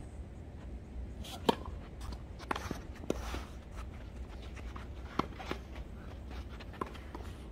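Tennis rally: sharp pops of racket strings hitting the ball and the ball bouncing on a hard court, one every second or so, the loudest about a second and a half in.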